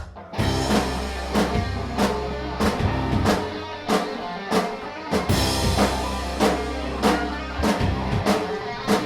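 Intro music: a band track with a steady drum-kit beat, bass and guitar.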